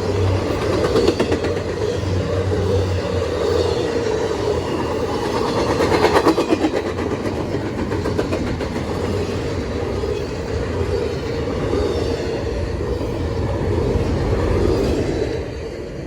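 Freight train of intermodal cars rolling past, a continuous rumble with the clatter of wheels over rail joints. The sound drops off somewhat near the end.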